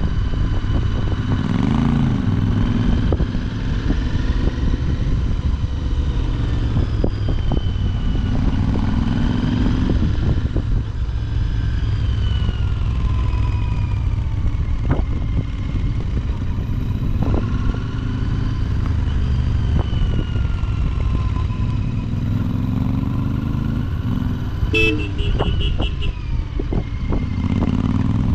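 Royal Enfield Continental GT650's 648 cc parallel-twin engine on its stock exhaust, under way on the road: the engine note rises and falls repeatedly through revs and gear changes over a heavy low rumble. Near the end a vehicle horn beeps several times in quick succession.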